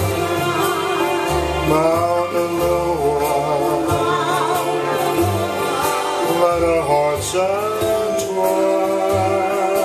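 Live band playing an instrumental break in a Hawaiian song: a melody line with vibrato over acoustic guitar and changing bass notes.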